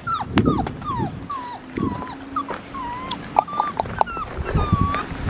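Young blue merle Australian Shepherd puppy whimpering: a string of about ten short, high whines that bend up and down in pitch, with a longer drawn-out whine near the end, over a few dull low thumps.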